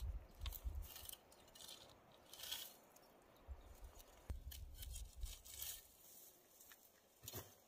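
Dry straw rustling and crackling in short, scattered bursts as it is pulled and gathered by hand, with a few soft thumps.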